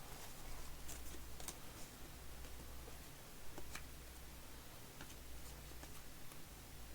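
Faint, scattered light clicks and ticks of trading cards being handled and flipped through, over a low steady hum.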